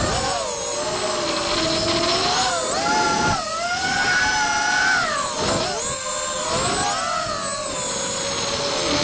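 FPV freestyle quadcopter's brushless motors whining, their pitch rising and falling with the throttle and dropping sharply several times.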